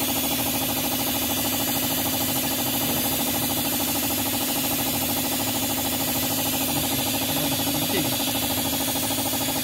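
Compressor-driven vacuum extractor running steadily, with a fast, even pulsing, as it sucks decarbonising cleaning fluid and loosened carbon out of an engine's spark plug holes through a thin tube.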